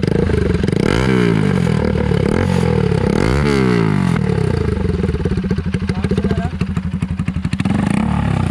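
Bajaj Pulsar NS200's single-cylinder engine running with its silencer removed, the exhaust coming straight out of the bare bend pipe, very hard and loud. It idles and is revved up and back down twice in the first half.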